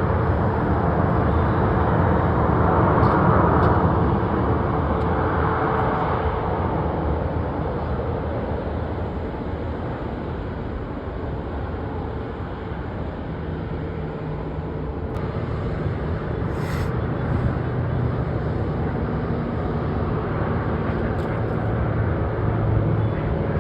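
Jet airliner engine noise, a steady rushing sound, loudest in the first few seconds and then easing off, with a faint steady whine underneath.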